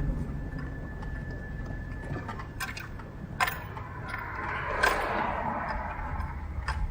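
Car driving slowly, heard from inside the cabin: a steady low engine and road rumble, a few sharp clicks and knocks, and a swell of road noise around the middle.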